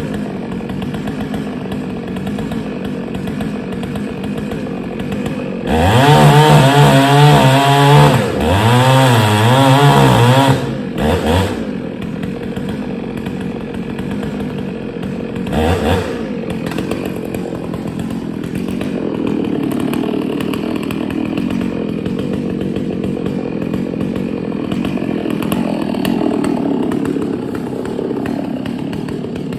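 Two-stroke Dolmar 6800i chainsaw running at idle, then opened up to full throttle about six seconds in for roughly five seconds, its pitch wavering as it cuts under load. It drops back to idle, with a couple of short throttle blips a few seconds later.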